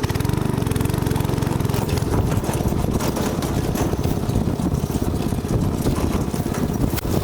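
A go-kart's small engine running steadily, a rapid even run of firing pulses.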